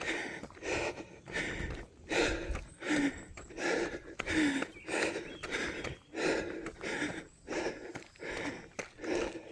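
A runner's hard, rhythmic breathing, about two breaths a second, from the effort of running uphill on a mountain trail.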